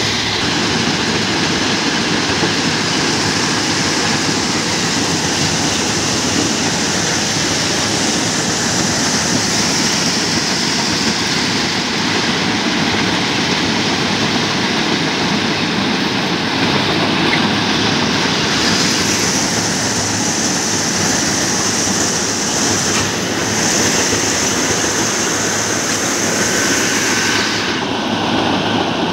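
Railway ballast cleaning machine at work: its machinery running while ballast stones are dug out, screened and carried on the conveyors, a loud steady din with the rattle of stone. The noise turns brighter and more hissing for several seconds past the middle.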